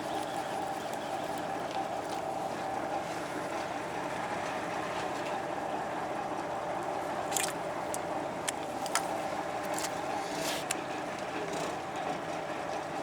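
Fishing boat's engine running steadily with a constant hum, with a few short sharp clicks or knocks in the second half.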